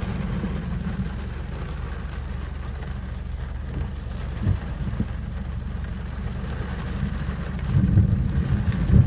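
Thunderstorm: steady rain with a low rolling rumble of thunder, heard from inside a car with the window cracked open; the rumble swells louder near the end.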